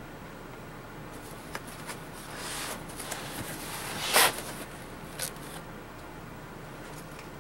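Long cardboard shipping box being handled and tipped up onto its edge on a wooden counter: soft cardboard scraping and a few small clicks, with one louder bump about four seconds in.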